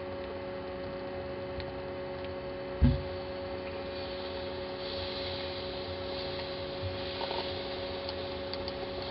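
A steady electrical hum of several pitched tones, with one dull thump about three seconds in.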